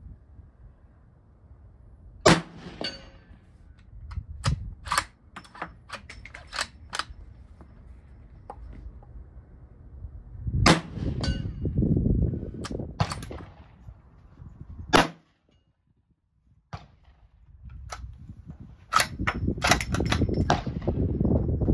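Scoped bolt-action rifle fired several times from a shooting bench, a few seconds between shots, with lighter clicks and knocks in between as the bolt is cycled.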